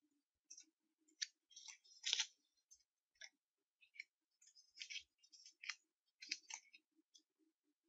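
Faint, irregular clicks and rustles of small objects being handled by hand, a scattered series of short ticks with no steady rhythm.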